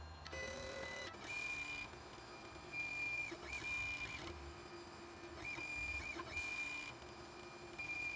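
3D printer's stepper motors whining as the print head moves down to the bed and starts laying the first layer. A steady high whine with a lower hum beneath it shifts pitch and breaks off briefly every second or two as the moves change.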